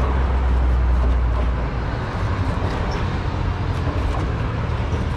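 Street traffic: a vehicle's engine rumbling close by, heaviest for the first couple of seconds, over a steady street din.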